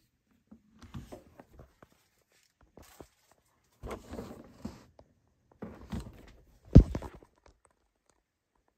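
Rustling handling noise and soft knocks in three short bursts, with one louder thump about seven seconds in.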